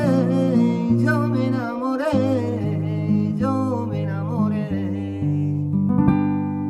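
A man's voice sings a wordless, wavering flamenco-style line over a guitar backing with steady bass and chords, ending a little under five seconds in. A final guitar chord is struck about six seconds in and rings out, fading, as the song closes.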